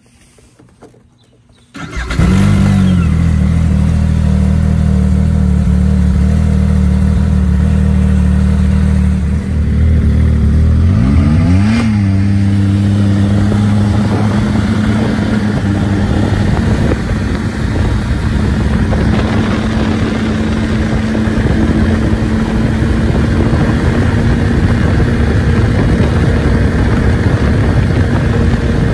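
Yamaha snowmobile engine starting about two seconds in and idling steadily, then revving up with a rising pitch around ten seconds in as the sled pulls away, and running steadily at riding speed after that.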